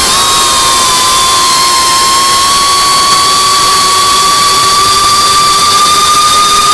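Motors and propellers of a 3-inch FPV drone whining at a steady throttle, the pitch creeping slowly up.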